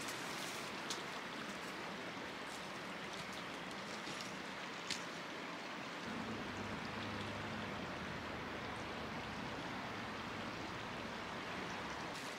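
Shallow, fast-flowing creek running over a stony bed, a steady rushing of water, with a few faint snaps of twigs underfoot.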